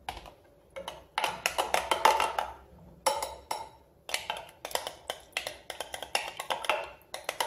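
Metal spoon stirring chia seeds and water in a glass mason jar, clinking rapidly against the glass in several quick runs.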